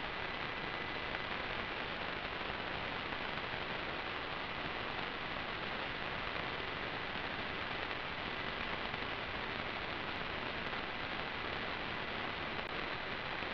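Steady static hiss with a faint high-pitched whine: the empty audio channel of an analog FPV video link, with no engine or other sound on it.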